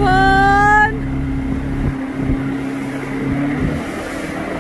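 Motorboat engine running steadily while towing an inner tube, under a rush of wind and water. A person's held yell lasts about the first second, and the engine's steady hum drops away a little before the end.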